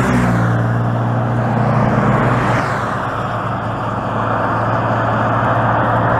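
Electric wheelchair's drive motor running steadily as it rolls along the road, a constant low hum under a steady rushing noise.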